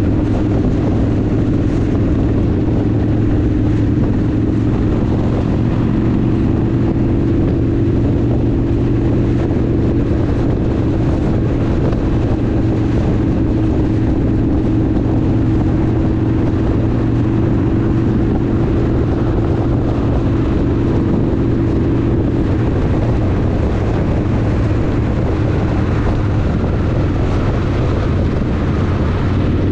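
Harley-Davidson V-twin motorcycle engine running steadily at highway cruising speed, heard from on the bike, with a constant rush of wind and road noise.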